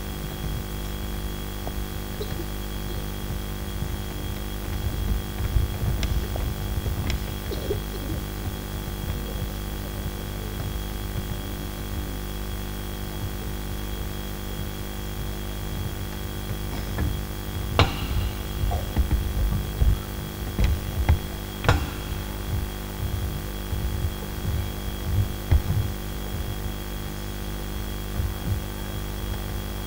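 Steady electrical mains hum from a sound system, with scattered low thuds and two sharp clicks in the second half.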